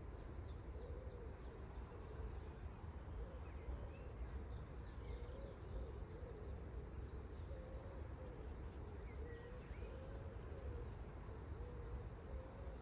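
Outdoor ambience: scattered short chirps and calls of small birds over a steady low rumble, with a faint wavering hum throughout.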